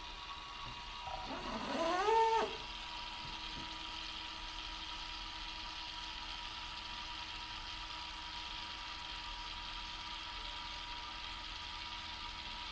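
Water-cooling pump running steadily in a PC loop freshly filled with distilled water, a constant hum with a faint whine. About a second in, a short, louder pitched sound rises in pitch and stops abruptly about two and a half seconds in.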